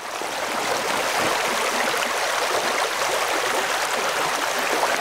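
Shallow spring creek running over rocks: a steady rush of flowing water.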